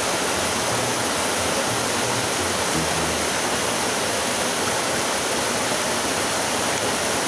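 Steady rushing of a small waterfall or forest stream running over rocks, an even hiss with no let-up.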